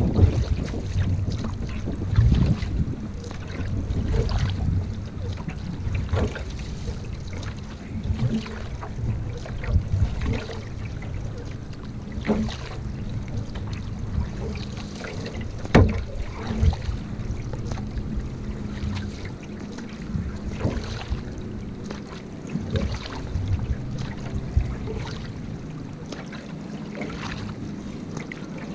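Single-blade canoe paddle strokes pulling through lake water, a short splash roughly every two seconds, over a steady low rumble of wind on the microphone.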